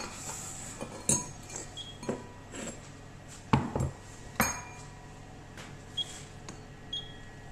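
A wire whisk and a stainless steel mixing bowl clinking and knocking as they are handled and set down: scattered knocks, some with a short metallic ring, the loudest about four and a half seconds in. Two faint short beeps near the end.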